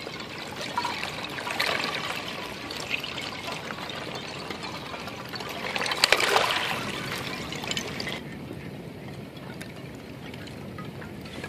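Small waves washing among shoreline rocks, with chunks of floating ice clinking and knocking against each other and the rounded rocks, a tinkling the uploader calls distinctly musical. The loudest wash, with dense clicking, comes about six seconds in; after about eight seconds the sound turns softer and duller.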